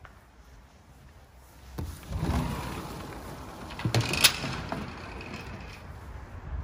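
Sliding security screen door rolling along its track, with a sharp click about four seconds in.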